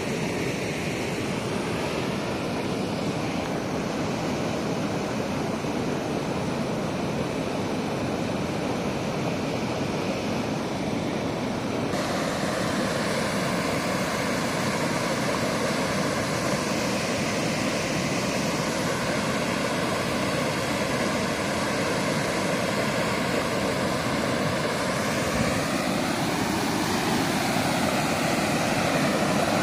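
Floodwater rushing steadily over a lake's stone overflow weir, a continuous white-water noise that grows a little louder and brighter about twelve seconds in.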